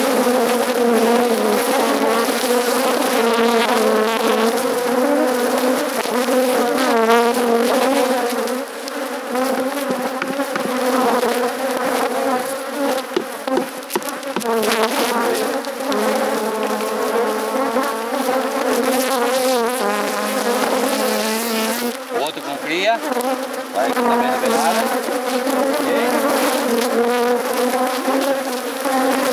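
Many honeybees buzzing steadily around an opened beehive, a dense wavering hum.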